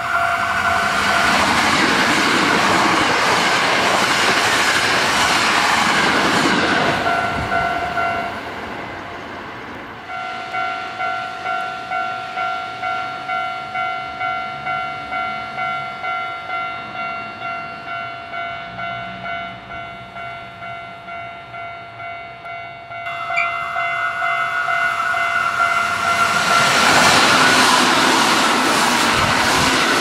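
Hankyu Series 9300 electric train running past a Japanese level crossing while the crossing bell rings. Midway the bell rings on its own, about two strokes a second, until a Hankyu Series 3300 train runs past near the end.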